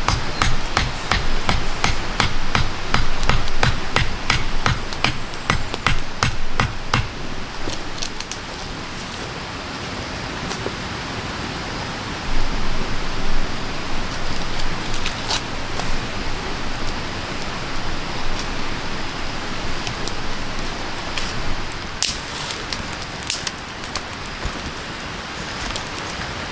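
A rapid run of sharp knocks, about three a second, for the first seven seconds, over a steady rain-like hiss. The hiss goes on alone after that, with a few scattered clicks.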